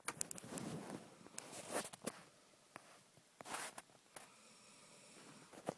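A man snoring in his sleep: noisy breaths about every two seconds, with a faint steady-pitched snore building near the end.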